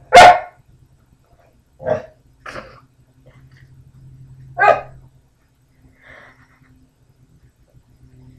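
Pit bull-type dog barking in short single barks: a very loud one at the start, two quieter ones about two seconds in, and another loud one near the middle. A faint low steady hum lies underneath.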